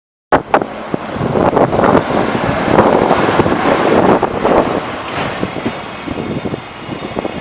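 Electric train passing close by at a level crossing: loud wheel-and-rail noise with irregular clattering over the rail joints, starting abruptly and easing somewhat in the last few seconds.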